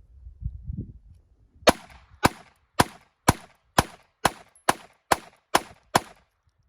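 Ten gunshots fired one after another at a steady pace, about two a second, starting a little under two seconds in.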